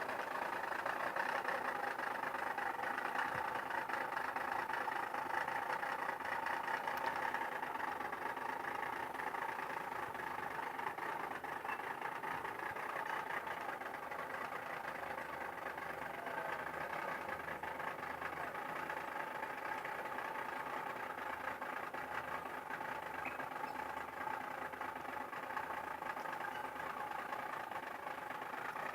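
Boat engine running steadily at an even pitch, with no change in speed.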